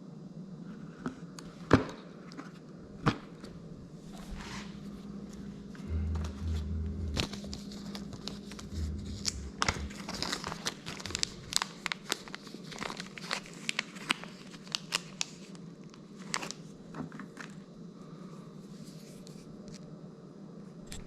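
Irregular clicks, taps and crinkling from hands working with small hard parts and crinkly material, busiest in the middle stretch, over a steady low hum.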